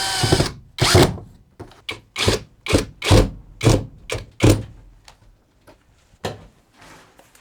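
A power drill's whine cuts off right at the start, followed by a run of dull thuds, about two a second, loud for the first few seconds and then fainter and sparser.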